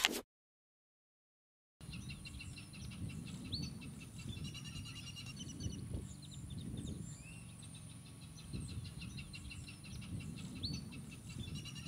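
After about two seconds of silence, outdoor marsh ambience comes in: many small birds chirping and calling, some with quick rising notes, over a low, uneven rumble.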